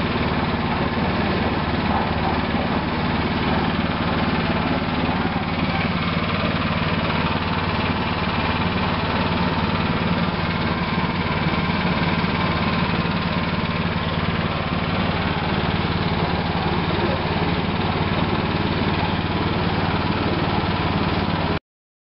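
JFC portable concrete mixer running steadily, its drive giving an even machine hum that doesn't change in pitch or level. The sound cuts off abruptly near the end.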